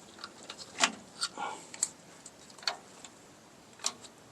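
Scattered sharp metal clicks and clinks, about five spread irregularly over four seconds, from drum-brake shoes, springs and hand tools being handled.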